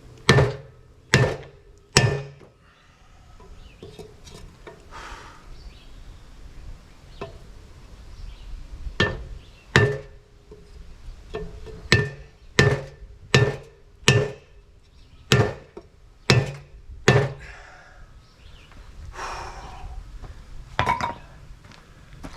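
Hammer blows on the steel tube of a Ford 9-inch rear axle housing, knocking out a dent: three strikes, a pause of several seconds, then about ten more in an uneven run, each with a short metallic ring.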